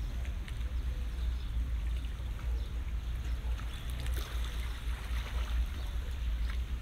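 Water rushing and splashing past the hull of a moving boat, over a steady low rumble.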